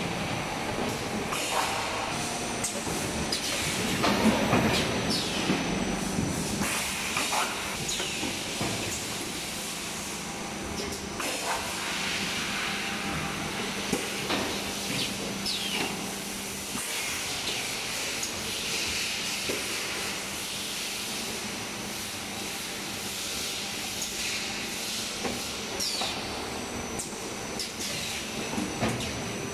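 JWELL extrusion blow molding machine running: a steady hum under a constant hiss, with scattered clicks and short falling squeaks from its moving parts, and a louder clatter about four seconds in.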